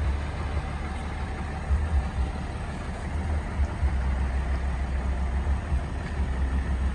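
Diesel engine of a heavily loaded Mercedes-Benz truck and trailer pulling uphill under load: a steady low rumble that swells a little now and then.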